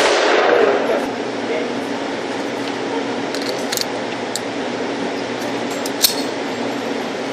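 The ringing tail of a pistol shot dies away in the first second, followed by steady background hiss with a few faint metallic clicks and one short sharp crack about six seconds in.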